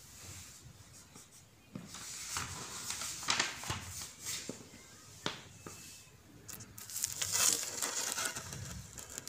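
Textbook pages being turned and handled: paper rustling and crinkling with a few soft clicks, loudest about seven seconds in.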